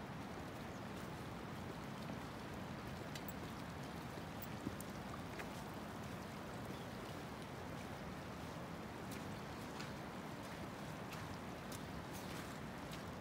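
Steady rush of a shallow mountain stream running over stones, with scattered small ticks and splashes.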